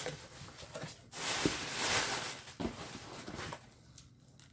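A package being torn open by hand, its packaging tearing and rustling in a couple of noisy stretches that fade near the end.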